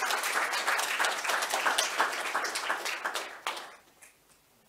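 Audience applauding, many hands clapping together, dying away a little before the end.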